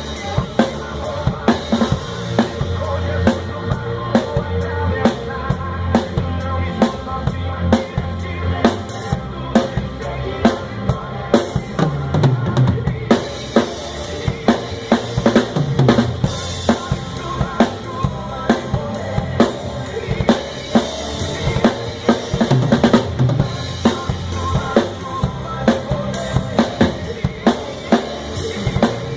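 Drum kit played in a steady sertanejo universitário groove, with bass drum, snare and rimshot hits, over a backing track of the song with other instruments.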